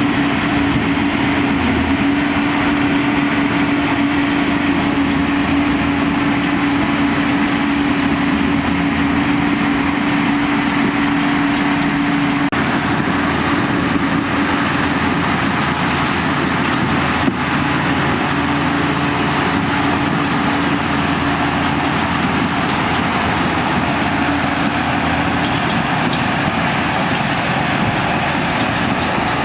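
Diesel engine of heavy earthmoving machinery running steadily, with a steady hum that weakens about twelve seconds in.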